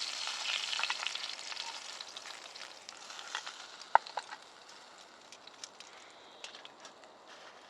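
Food frying in a pan: a sizzle that is loud at first and dies down steadily, with scattered sharp pops and crackles, the loudest about four seconds in.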